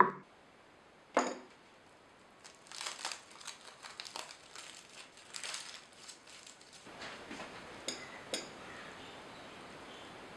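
Two sharp knocks, then aluminium foil crinkling for a few seconds as it is unwrapped from a roasted garlic bulb, followed by a couple of faint clicks.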